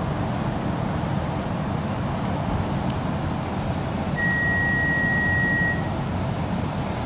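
Inside an X'trapolis 100 electric multiple-unit train standing at a platform: a steady low rumble of the train's running equipment, with a single high electronic beep lasting about a second and a half, starting about four seconds in.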